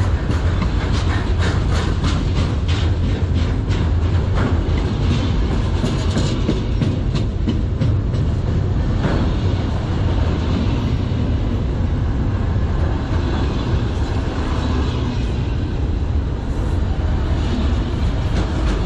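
Autorack freight cars rolling past at close range: a steady heavy rumble with sharp wheel clacks, most frequent in the first few seconds.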